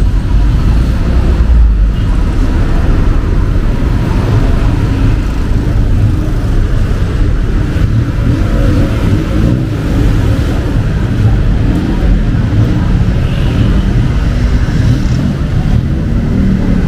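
Steady low rumble of street traffic and vehicle engines.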